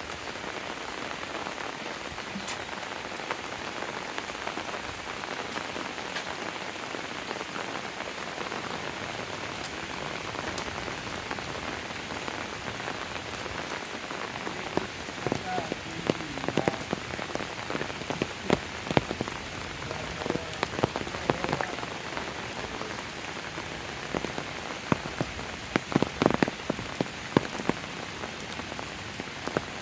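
Steady rain falling, with frequent sharp louder taps from about halfway in.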